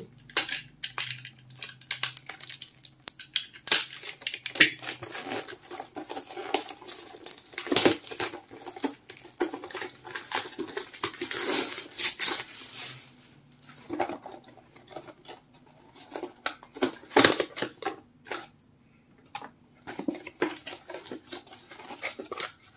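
A cardboard retail box and its packaging being opened and handled by hand: irregular rustling and scraping with many sharp clicks and knocks, easing off briefly about three-quarters of the way through.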